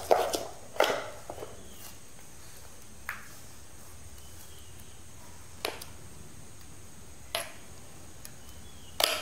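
A few isolated light clinks of utensils on stainless-steel dishes, several seconds apart, the loudest near the end, over a faint steady background with a thin high tone.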